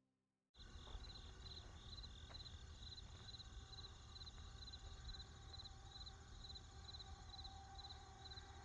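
Faint insect chirping: a high pulsing trill repeating about twice a second over a low rumble, starting suddenly about half a second in.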